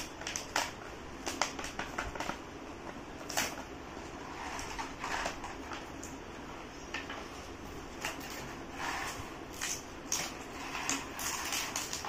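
Plastic blister packaging of a modelling-clay set crackling and rustling as it is handled and pulled open, with scattered small clicks of plastic pieces.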